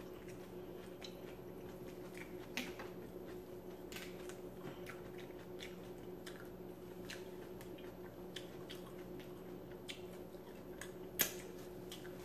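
Quiet eating sounds: faint wet clicks and squishes from rotisserie chicken being torn apart by hand and chewed, over a steady low hum. A sharper click comes about two and a half seconds in and another near the end.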